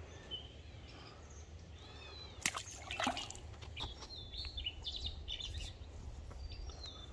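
Birds chirping and singing over a steady low rumble of wind on the microphone, with two brief sharp splashy sounds about two and a half and three seconds in.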